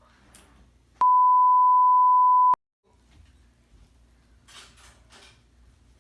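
A single edited-in 1 kHz bleep tone, held steady for about a second and a half, with the background sound cut out beneath it, typical of a censor bleep over a word.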